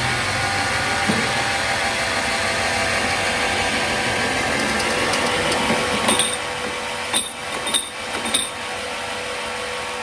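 Horizontal band sawmill running with a steady mechanical noise that eases slightly about six seconds in. Over the next two and a half seconds come four sharp metallic clicks from its handwheel and levers being worked.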